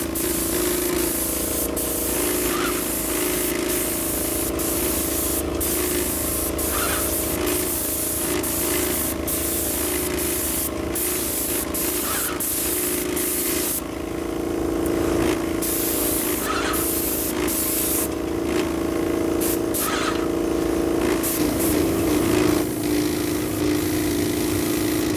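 Paint spray gun hissing steadily as it sprays, the hiss cutting off for a second or two twice in the second half as the trigger is released between passes, over a steady hum.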